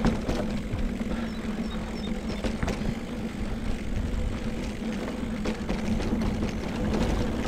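Mountain bike rolling along a wet, muddy dirt trail: a steady low rumble of tyres and wind, a constant buzz, and scattered sharp clicks and rattles as the bike goes over bumps.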